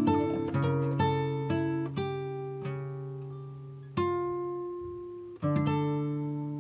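Background music of an acoustic guitar picking and strumming slow chords, some left to ring out for a second or more before the next.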